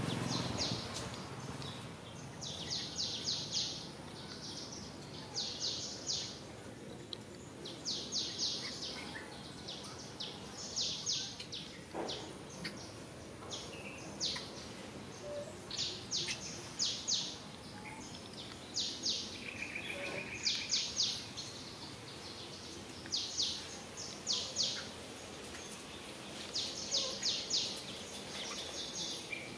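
A bird singing short, high-pitched rattling trills, repeated every second or two, over steady outdoor background noise.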